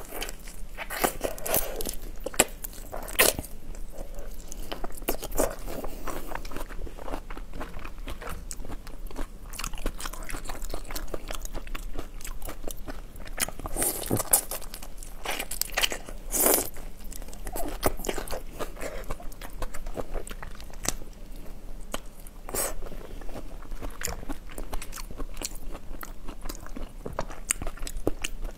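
Close-miked biting and chewing of whole raw chili-marinated shrimp, the shells crunching in frequent sharp crackles.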